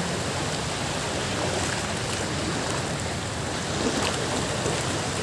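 Small waves washing in over shallow beach water around a wading person's legs: a steady rushing of surf.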